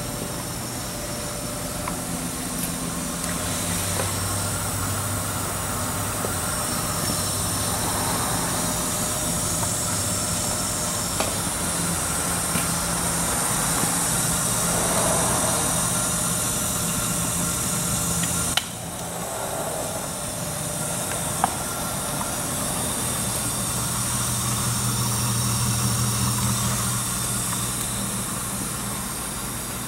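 Blanchard No. 11 rotary surface grinder running under power: a steady electric-motor hum with a high hiss, a few light clicks, and a brief break about two-thirds of the way in.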